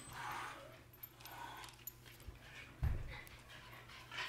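Miniature schnauzer puppy panting and sniffing close by, soft and breathy, with one dull thump about three seconds in.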